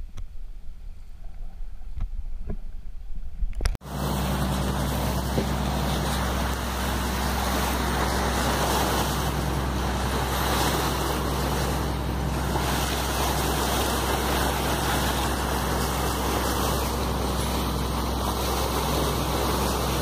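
A muffled low rumble with a few faint clicks, then from about four seconds in a boat's engine running steadily with a low hum under loud rushing water and wind noise.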